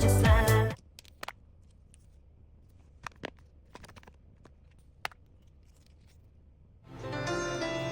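Background music stops, leaving a few faint, scattered clicks and light handling noises, then music starts again near the end.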